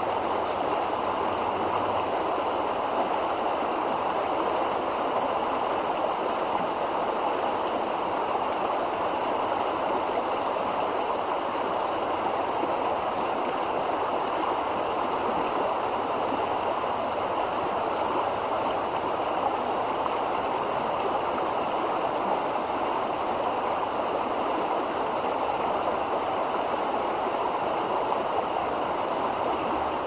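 Shallow river rushing steadily over a rocky bed: a constant, even rush of water with no breaks.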